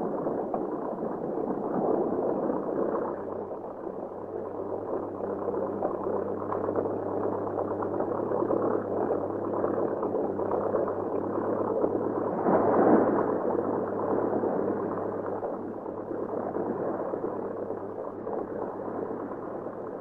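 Boat engine running steadily with water noise, swelling slightly about two-thirds of the way through.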